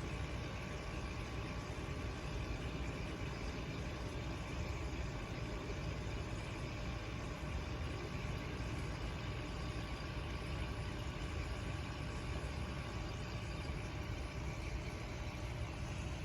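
Steady low mechanical hum that holds even throughout, with no clear events.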